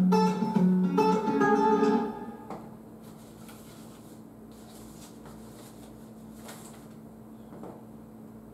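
Acoustic guitar music that stops about two seconds in. After it, only a faint steady hum and hiss remain.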